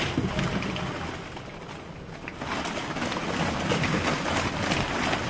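Plastic balls in a ball pit clattering and rustling as a child wades through them, a dense patter of small clicks from about halfway through, over a low background hum.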